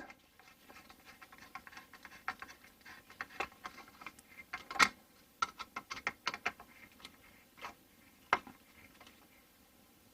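Small, irregular clicks and scratches of hands working a hose clamp onto a diesel heater's air-intake pipe and filter, with one sharper click a little under five seconds in.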